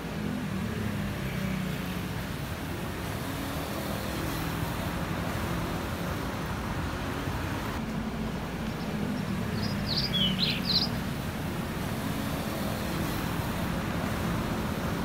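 Steady street traffic noise, a hum of passing and idling vehicles, with a short burst of bird chirps about ten seconds in.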